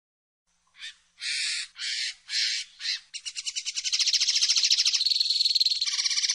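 Common linnet singing: a few separate harsh, twittering notes about a second in, then a rapid trill from about three seconds in that quickens into a fast, even rattle, stepping in pitch twice.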